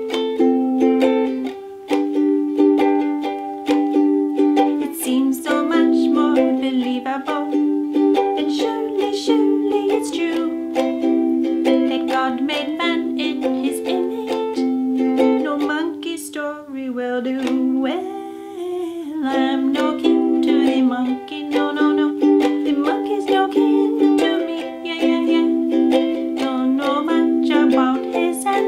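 A woman singing a simple children's song while strumming chords on a ukulele.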